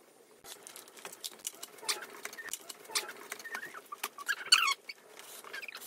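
Rapid small clicks and rattles of zip ties and wooden parts being handled while a mesh net is fastened to a wooden frame, with a few short high squeaks.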